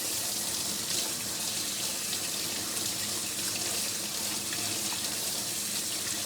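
Water running steadily from a tap into a sink while a freshly molded gel mouthguard is held under it to cool.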